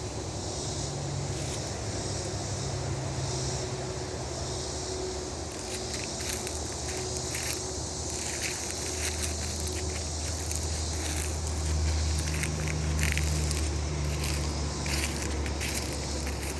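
Woodland ambience: a low steady drone that swells in the second half, under irregular crackling and rustling that thickens about six seconds in.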